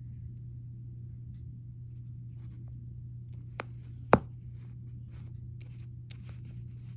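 Small plastic Lego pieces clicking and tapping as they are handled and pressed together, with one sharp snap about four seconds in. A steady low hum runs underneath.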